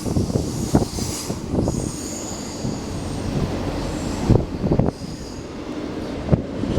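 Freight train rolling past, a steady rumble of wheels on rail broken by a few sharp knocks, with faint high wheel squeals on and off.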